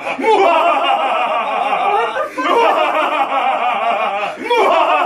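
A man's voice, loud and drawn out in three long breaths of about two seconds each. Each breath starts with a rising glide and wavers throughout, somewhere between hearty laughter and belted, operatic-style singing.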